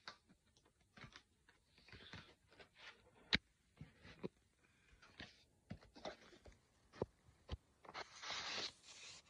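A model train's cardboard box and polystyrene packaging being opened by hand: scattered clicks and taps with short bursts of rustling and scraping, one sharp click a little over three seconds in and a longer rustle near the end.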